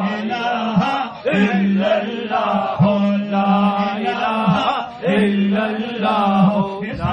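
A man singing a Punjabi naat into a microphone in long, drawn-out phrases of a second or two each, the melody sliding over a steady low held note.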